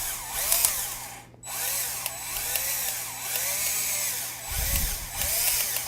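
Power drill with a 3.5 mm bit boring into an iPhone 7's body, grinding and crunching through the metal and screen, with a whining tone that rises and falls over and over. It stops briefly about a second and a half in, then goes on, with a low thump near the end; it sounds really bad.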